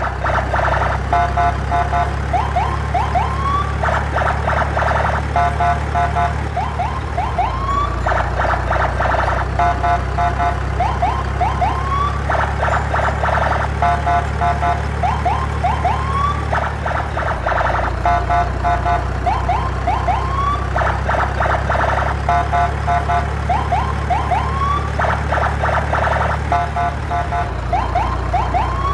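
Electronic siren and alarm sound effect playing in a loop, the same sequence of a rasping burst, rapid beeps and short rising whoops repeating about every four seconds over a steady low hum.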